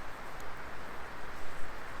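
Wood fire burning in a fire pit: a steady hiss of flame with a few faint crackles.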